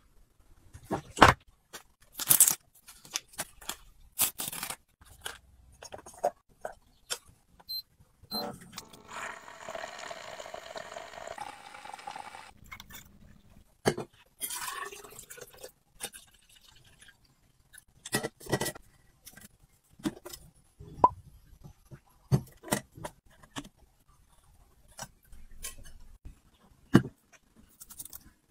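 Close-up handling sounds of small household items: a string of separate clicks, taps and knocks. About a third of the way in comes a steady rushing hiss lasting roughly three seconds.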